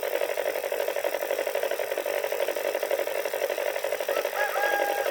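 Paddy threshing machine running steadily with a fast, even pulsing beat. A short held tone sounds over it near the end.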